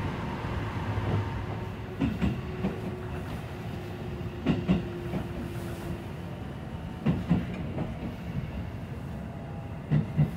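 E653-series limited express train heard from inside the passenger car: a steady rumble of the running gear, broken by groups of wheel clacks over rail joints about every two and a half seconds.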